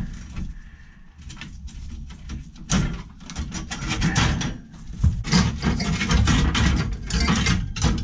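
Close, irregular scraping, clicking and rubbing of tools on the copper tubing of a freezer's discharge condensate loop as the leaking loop is cut out. It gets busier and louder about three seconds in.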